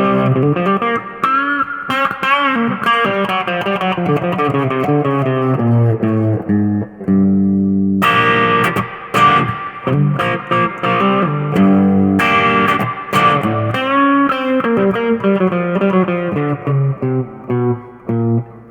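Electric guitar played through a freshly built Notaklon, a Klon-style overdrive pedal: a run of picked notes and chords that turns brighter about eight seconds in.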